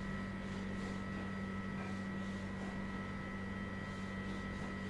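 Steady electrical hum with a faint hiss and two thin, high, steady tones behind it, unchanging throughout.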